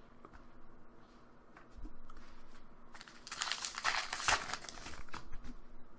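Foil Pokémon booster pack wrapper crinkling and being torn open, with a loud burst of crackling about three seconds in and lighter crinkles around it.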